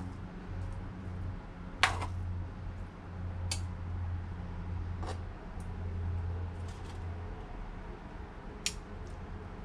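Metal kitchen tongs clicking and tapping against a cutting board and plate as chicken pieces are picked up and set down. About five sharp clicks, the loudest about two seconds in, over a low steady hum.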